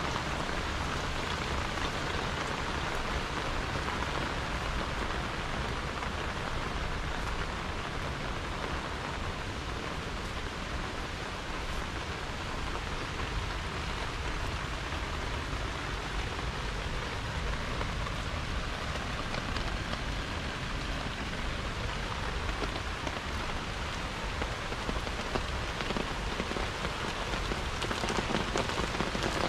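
Steady rain falling on garden foliage, potted plants and wet concrete paving.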